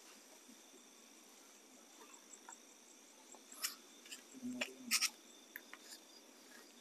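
Night insects, crickets, chirping steadily and faintly, with a short run of quick high chirps about three seconds in. A few soft clicks and rustles come between about four and five seconds in.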